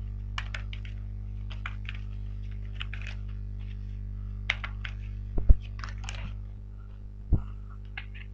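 A deck of oracle cards being shuffled by hand: a run of quick card clicks and flicks, with a few dull thumps about five and a half and seven seconds in, over a steady low hum.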